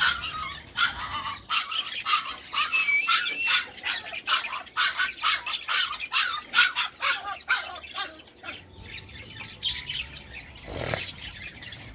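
Budgerigars chirping and chattering in a dense run of short, quick calls that thin out about eight seconds in, with one brief louder burst of noise near the end.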